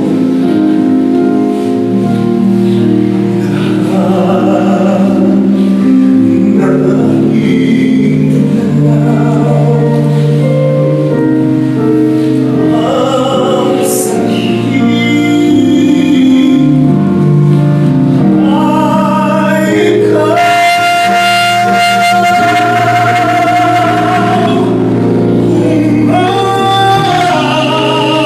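Man singing a song into a microphone over musical accompaniment, holding one long, strong note about twenty seconds in.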